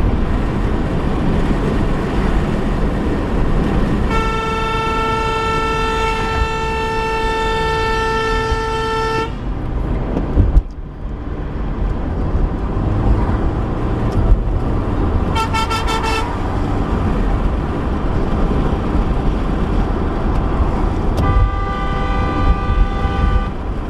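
Car horn honking over steady road and engine noise: a long blast of about five seconds, then a quick burst of short toots, then another blast of about two seconds near the end. A sharp thump comes about ten and a half seconds in.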